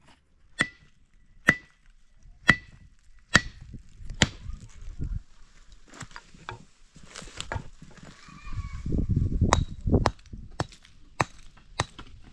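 Sharp chopping blows, about one a second for the first few seconds, each with a brief metallic ring. Irregular knocks and a low rumbling shuffle follow from about eight to ten seconds in, with more strikes near the end.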